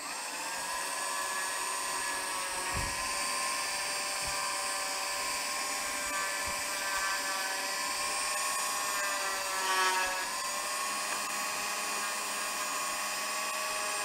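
Dremel rotary tool spinning up to a high-pitched whine and running steadily, a polishing tip held against the metal spout of a soap dispenser pump. The pitch dips briefly about ten seconds in.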